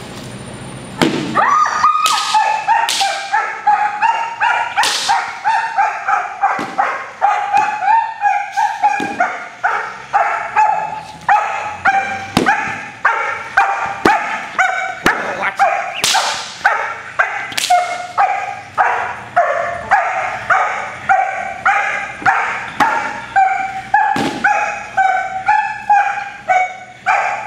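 German Shepherd barking hard and continuously at about two barks a second, lunging on the leash at a helper: aggressive barking in a civil-aggression test toward a person. A few sharp cracks stand out among the barks.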